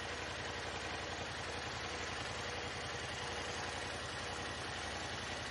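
Yamaha Wolverine side-by-side's engine running steadily at low revs while the machine rolls slowly, an even low drone that holds its level throughout.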